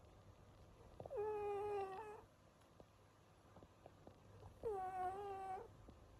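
Sleeping cat snoring with a high, squeaky, tone-like snore about a second long on each breath, twice, about three and a half seconds apart.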